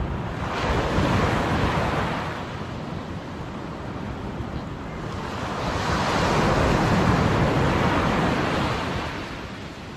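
Small ocean waves breaking and washing up a sandy beach: a steady rushing surf that swells about a second in and again, louder, from about six seconds, then eases off.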